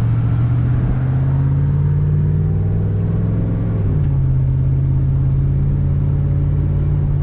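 A car's engine and road noise droning steadily inside a moving vehicle's cabin. The low hum rises slightly in pitch, then shifts about four seconds in and holds steady.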